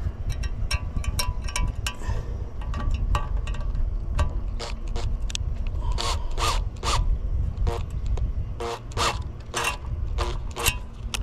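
Clicks, taps and scrapes of a metal ridge-tile clip and screw being fitted against a glazed ridge tile and wooden batten, the taps coming thick and fast in the second half, over a low steady rumble.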